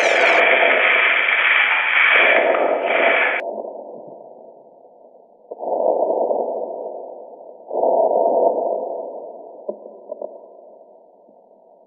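Electronic noise effects, filtered in steps: a dense hiss is suddenly cut to a muffled noise about three seconds in. Two more muffled noise bursts come on suddenly, a couple of seconds apart, and each fades away.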